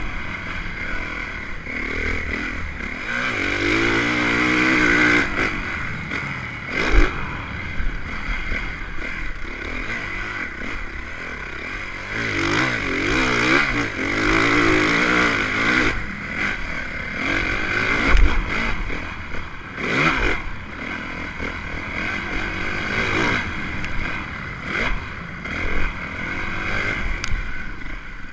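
Motocross bike engine being ridden hard, its revs rising and falling again and again as the rider accelerates and shifts. A few sharp knocks cut through about a quarter and two-thirds of the way in.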